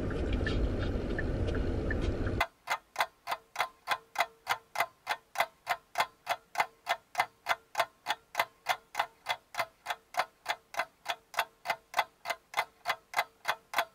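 Steady clock-like ticking, about three ticks a second, over dead silence, starting a couple of seconds in after a stretch of steady background noise. It sounds like an edited-in waiting sound effect.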